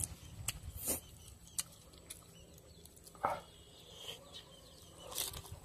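Faint scattered clicks and small rustles of food being handled by hand: leafy greens and noodles picked up from a plate, with one slightly louder short sound about three seconds in.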